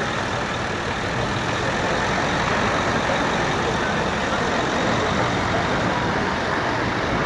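Heavy-haulage truck's diesel engine running steadily under load as it slowly tows a multi-axle low-loader carrying a 142-tonne boiler past.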